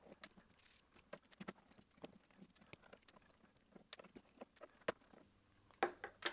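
Faint, irregular clicks and taps of a Torx T8 precision screwdriver working the small screws that hold a hard disk's controller board, with a louder cluster of clicks near the end.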